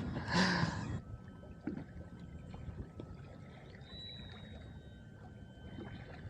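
Faint water lapping and gurgling against a kayak's hull over a low rumble, with a brief rustle in the first second and a few faint thin steady tones.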